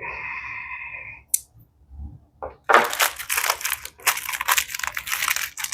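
Plastic ration food packaging crinkling and crackling as it is handled, starting about two and a half seconds in. Before it comes a short steady tone and a single click.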